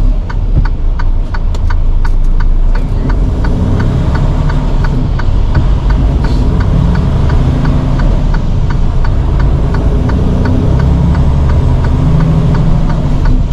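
Truck's diesel engine heard from the cab, idling at a required railroad-crossing stop and then pulling ahead under load from about three seconds in. A steady fast ticking, about three a second, runs over the engine for the first several seconds.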